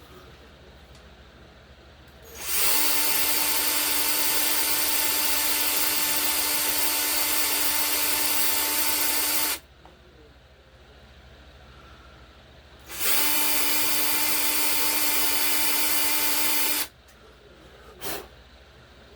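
Small electric drill running at a steady speed in two long bursts, about seven seconds and then about four, drilling out plastic on a Hot Wheels toy car. There is a short click near the end.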